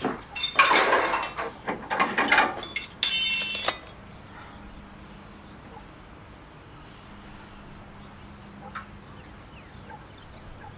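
Metal tools clinking and clanking against a car's parts in a quick run of sharp knocks, the last one ringing briefly. After about four seconds it drops to low tape hiss with a faint hum and a single small click.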